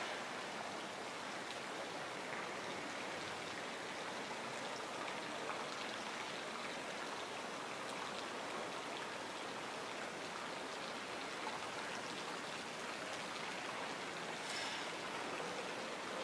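Steady, even outdoor hiss with no distinct events, and a brief brighter rustle near the end.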